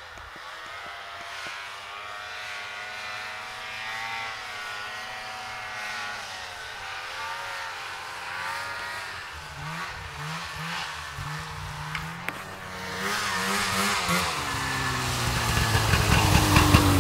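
Snowmobile engine running at a distance, its pitch rising and falling as it speeds up and slows across the snow. Past the middle a nearer snowmobile engine comes in, deeper and growing louder toward the end.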